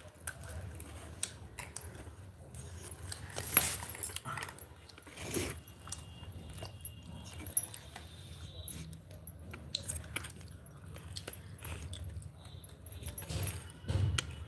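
Scattered clicks, taps and rustles of a phone being handled close to its microphone, with one sharper knock about three and a half seconds in.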